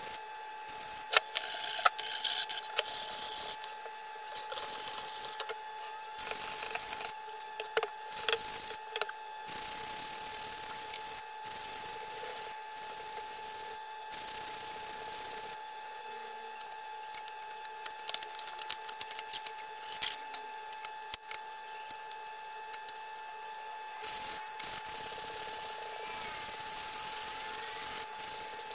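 Charred wooden board being rubbed by gloved hands: dry scrubbing strokes across the wood in uneven bouts, with scattered knocks and taps. A steady hum runs underneath.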